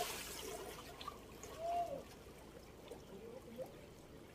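Water splashing and trickling in a flowing stream as a thrown cast net settles and a man wades through the water after it; the splash of the landing net is fading at the start. A brief call sounds once about a second and a half in.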